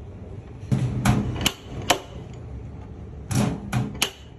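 Sharp taps of a hand tool on a car's sheet-metal body panel during dent repair, several strikes in two quick groups, each with a short metallic ring.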